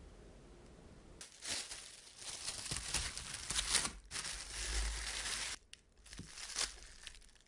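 Plastic cling film crinkling as hands stretch it over a plastic tray and press it down. It starts about a second in, crackles in irregular bursts and thins out near the end.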